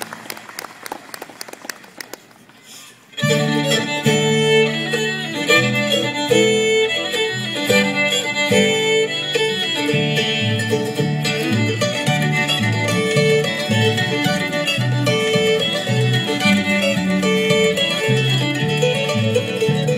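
Small bluegrass band playing an instrumental intro on fiddle, guitar and banjo, starting suddenly about three seconds in after a quieter stretch of scattered clapping.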